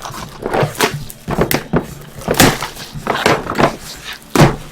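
Cardboard hobby boxes and card packs being handled and opened: a run of short knocks, taps and rustles of cardboard and wrappers.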